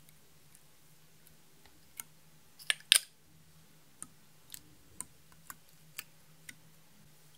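Makeup applicator tube tapping and clicking against a glass dish as the product is laid on in strokes: a few sharp clicks, the loudest a quick cluster about three seconds in, then a single click about every half second.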